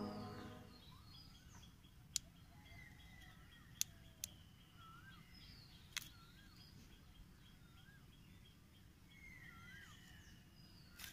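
Background music fades out in the first second, leaving faint bird calls: short whistled notes that rise and fall, and a run of quick chirps. Four small sharp clicks come through between them.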